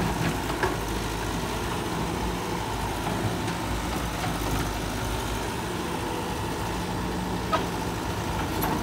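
Caterpillar 312 hydraulic excavator's diesel engine running steadily while the machine travels on its crawler tracks, with a few light clicks.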